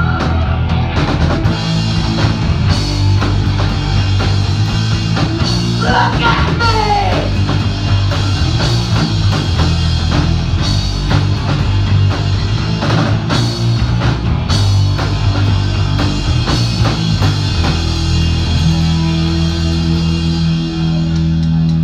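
Hardcore punk band playing live: distorted guitars, bass and a drum kit with crashing cymbals, with a vocal line coming in about six seconds in.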